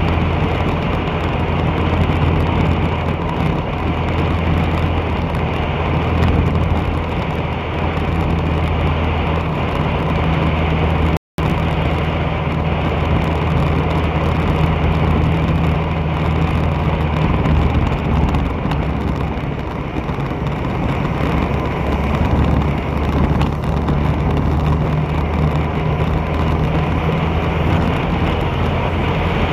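Steady engine hum and road and wind noise from a vehicle driving along a city street. The sound cuts out completely for a split second about 11 seconds in.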